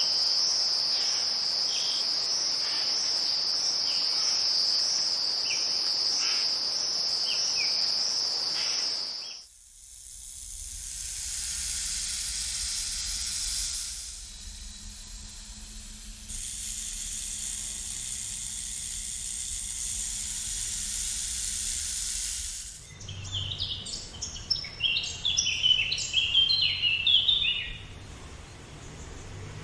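Rainforest ambience in three parts. First, insects trill steadily and high-pitched, with scattered short bird chirps. After an abrupt change about nine seconds in comes a steady high hiss that eases for a couple of seconds midway. Near the end a bird calls loudly in quick runs of falling chirps.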